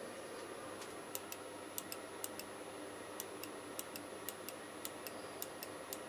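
Faint, light clicks, mostly in close pairs repeating about twice a second, from hands working the front brake light switch and its wiring on a motorcycle.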